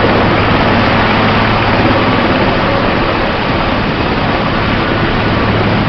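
Helicopter running close by: a loud, steady drone of engines and rotor with a constant low hum underneath.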